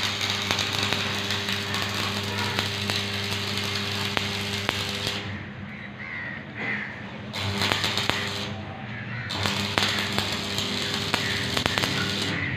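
Stick arc welding on a steel frame: the electrode arc crackles and sizzles over a steady hum. The arc breaks off about five seconds in, is struck again about two seconds later, and breaks briefly once more near nine seconds.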